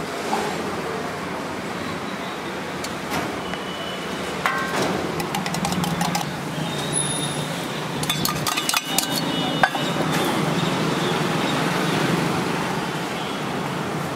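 A steel tumbler and metal spoon clink and tap against a large flat griddle as beaten egg is poured and spread. Sharp clinks come once a little before halfway and in a cluster past the middle, over steady street noise.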